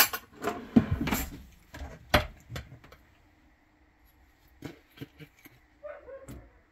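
Hard knocks and clatter as frozen treats are knocked and pried out of a plastic mold onto a baking sheet, loudest about a second in and again about two seconds in. Lighter knife taps and scrapes against the mold follow around five seconds in.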